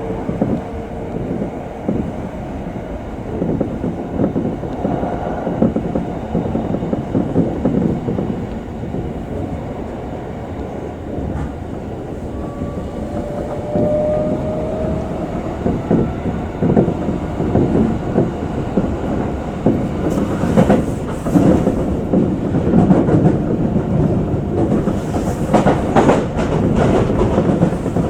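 Electric commuter train running on the rails, heard from inside the leading car: a steady rumble of wheels and motors. It grows louder about halfway through, and near the end irregular clicks of the wheels over rail joints come through.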